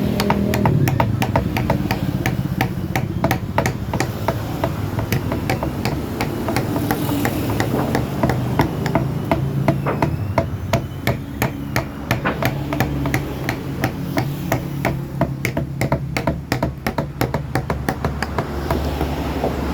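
A mallet driving a carving chisel into wood: a dense run of sharp taps, several a second and uneven in spacing.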